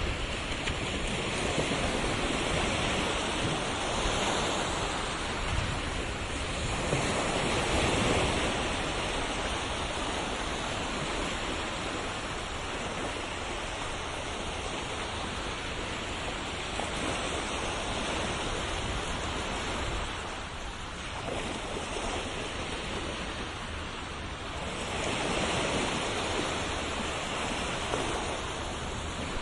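Ocean surf washing ashore, a steady rush of water that swells louder as waves break every several seconds.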